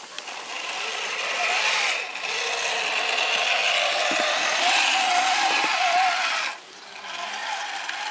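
RC scale crawler's motor and drivetrain whining and grinding as it crawls over roots and rocks, the pitch rising and falling with the throttle. The sound dips briefly about two seconds in and gets quieter near the end.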